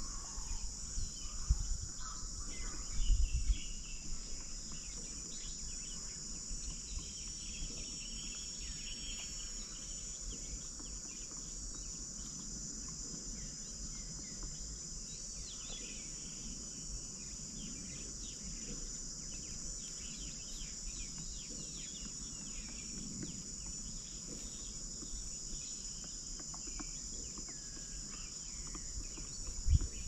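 Steady high-pitched insect chorus in the open countryside, with faint bird calls now and then and a brief low thump about three seconds in.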